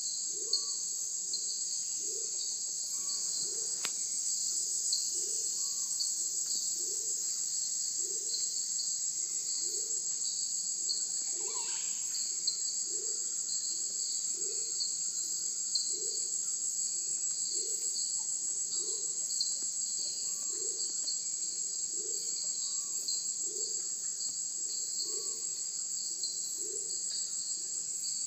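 Dense tropical insect chorus: a steady high buzz with fast pulsing, and a low call repeating about once a second throughout. Faint bird calls come in here and there.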